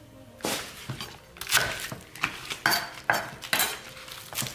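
Chef's knife chopping green onions on a wooden cutting board: a series of separate knocks of the blade striking the board, about two a second, starting about half a second in.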